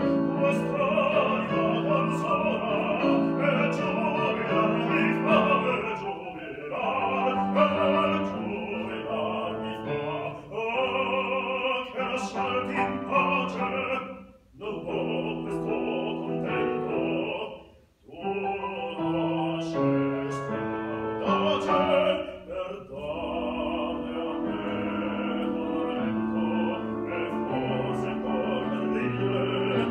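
Operatic baritone singing an aria with grand piano accompaniment, with two brief pauses about halfway through.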